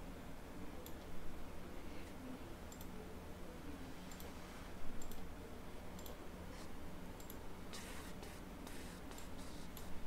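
Computer mouse clicking, a click every second or so, then a quicker run of clicks near the end, over a faint low steady hum.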